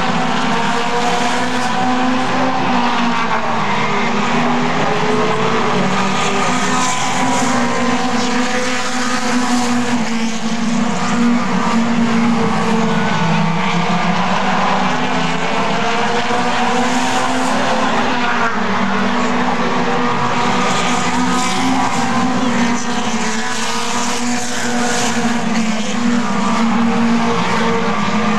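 A pack of four-cylinder Super 4 late model stock cars racing around a short oval. Their engines run hard, with several engine notes rising and falling in pitch as the cars lap.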